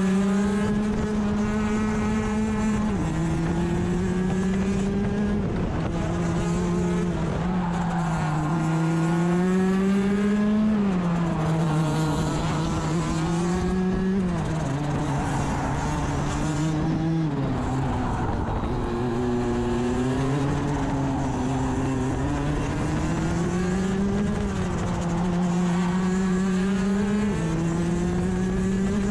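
Rotax DD2 racing kart's 125cc two-stroke single-cylinder engine heard onboard at race pace, its pitch climbing along the straights and falling into the corners again and again, with several sudden steps down and up in pitch.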